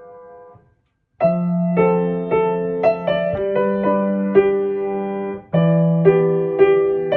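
Background piano music: a chord fades out, a brief silence, then a new piano piece of chords and melody notes begins about a second in.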